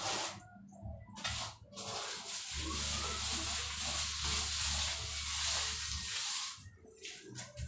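Hand-held sponge rubbed over fresh cement plaster on a wall: a few short strokes, then a longer continuous rub that fades near the end.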